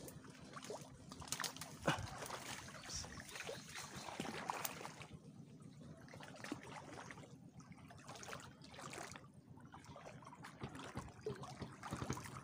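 Soft trickling and sloshing of shallow water, with scattered small clicks and a sharper knock about two seconds in.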